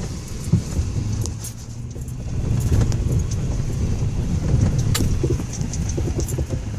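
Ford Raptor pickup crawling over a rough off-road trail, heard from inside the cab: a steady low rumble with scattered rattles and knocks.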